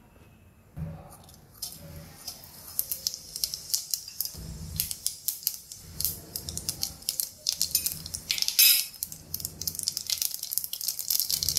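Cumin seeds crackling and sizzling in hot ghee in a non-stick pan. The crackle starts a couple of seconds in and grows busier, with one louder spatter past the middle.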